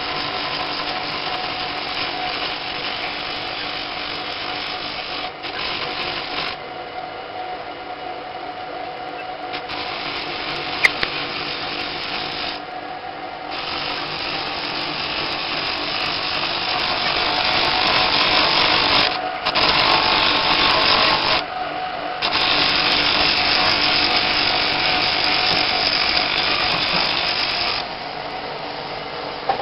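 Electric power tool working fossil stone: a steady motor hum under a hissing, grinding noise that drops away briefly several times and grows louder in the second half.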